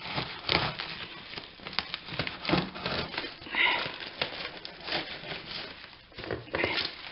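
Black plastic wrapping on a parcel being cut and torn open with a knife, crinkling and crackling in irregular bursts.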